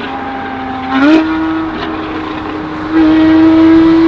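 Sports car engine running through a custom, nearly straight-through valved exhaust, a steady droning note. About a second in the revs rise a step and hold, and about three seconds in it gets noticeably louder at the same pitch, as the throttle opens further.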